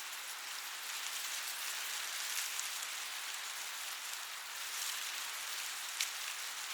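Wind blowing through a cornfield: a steady rustling hiss of corn leaves, with scattered small ticks and one sharper tick about six seconds in.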